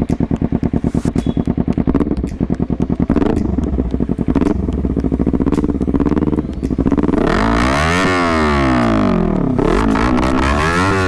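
Kawasaki Ninja 300 parallel-twin engine through an aftermarket SC Project replica slip-on exhaust. It idles with a loud, choppy pulse, then is revved up and down several times in the second half.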